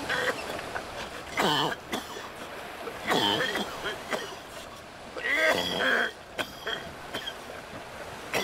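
A person's voice making three wordless vocal sounds about two seconds apart, each falling in pitch.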